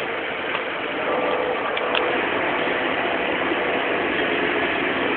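Steady rattling running noise of a passenger train, heard from inside the carriage, with a faint click or two about two seconds in.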